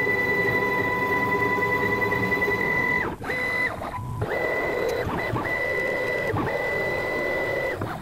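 CNC router's stepper motors whining as the gantry makes a series of moves. The pitch rises as each move speeds up and drops as it slows, with brief stops about three, four, five and six seconds in.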